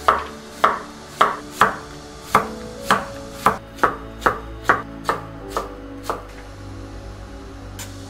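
Chef's knife chopping a vegetable on a wooden cutting board: about thirteen sharp chops, roughly two a second, stopping about six seconds in.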